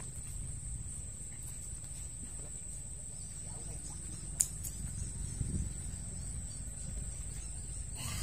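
Steady high-pitched insect drone over a low rumble outdoors, with one sharp click about halfway through.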